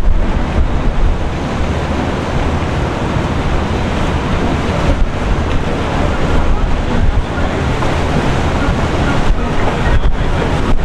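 Wind buffeting the microphone over the rush and splash of water, as from a boat moving on open water: a loud, steady noise with a heavy low rumble.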